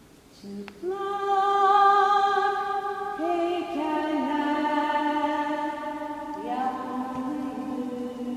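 A woman's voice singing a slow melody unaccompanied, starting about half a second in and holding long, steady notes that step to a new pitch every second or two.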